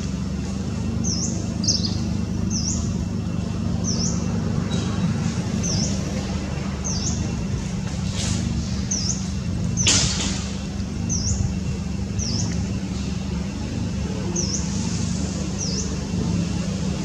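A bird repeating a short, high chirp that dips and rises in pitch every second or two, over a steady low rumble. Two sharp clicks stand out, about eight seconds in and about ten seconds in, the second the loudest.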